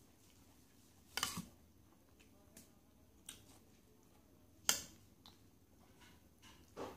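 Eating sounds: a handful of short clicks and smacks from hand, spoon and ceramic bowl and from chewing, spaced a second or two apart, the loudest about five seconds in.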